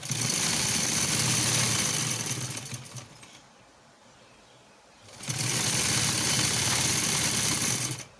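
Domestic sewing machine running as it stitches a trouser hem, in two spells of about three seconds each with a short stop between them.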